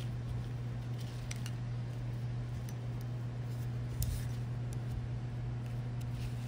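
Scattered light metallic clicks and taps, the sharpest about four seconds in, as a small hand tool works bearings down a steel pump shaft into the seat ring holder, over a steady low hum.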